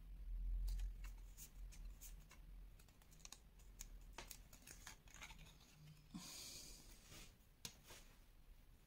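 Faint paper-handling noises: scattered light clicks and taps of kraft cardstock pieces being pressed and fitted together, a low bump near the start and a short rustle about six seconds in.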